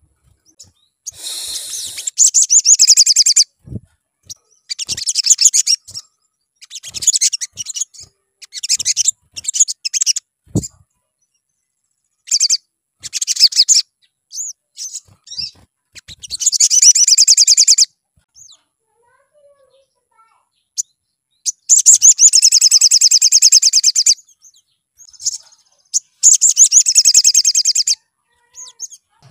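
Male olive-backed sunbird singing: loud, high-pitched phrases repeated with short pauses, several of them rapid trills lasting about two seconds, mixed with short chirps.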